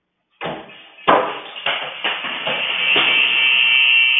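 Knocks and clatter in a kitchen heard through a security camera's thin, tinny microphone: about six sharp knocks over three seconds. A steady high-pitched whine builds under them and holds to the end.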